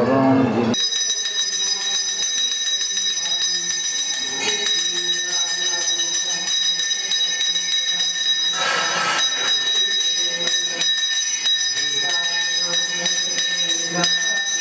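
Temple bell ringing continuously, a shimmering metallic ring with rapid strikes, with a brief noisy rush about nine seconds in.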